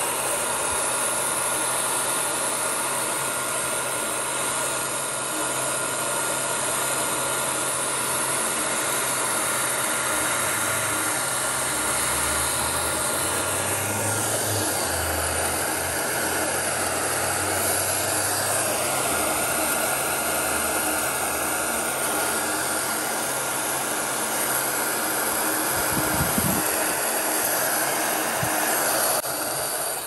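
Electric heat gun running steadily, its fan blowing with a steady whine, as it shrinks marine heat-shrink tubing over crimped wire connections. It switches off near the end.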